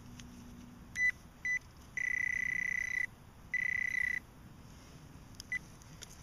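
Metal detector sounding its target tone over buried metal: two short beeps, two longer steady tones, then one more short beep near the end, all at the same high pitch.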